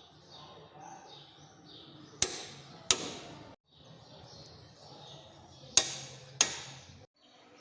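Click-type torque wrench breaking over as the sway bar link nut reaches its specified torque: two sharp clicks less than a second apart, then two more a few seconds later, over a faint steady hum.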